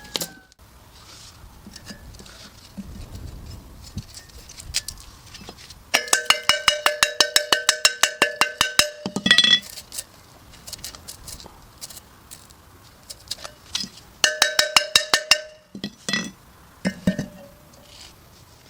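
Rapid metallic tapping, about eight strikes a second, each with a lingering ringing tone, in a run of about three seconds and a shorter run later, with scattered single knocks around them.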